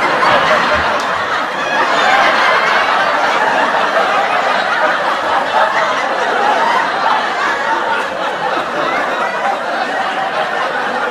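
Sitcom studio audience laughing and applauding together, a loud, dense, continuous crowd wave that eases off slightly in the second half.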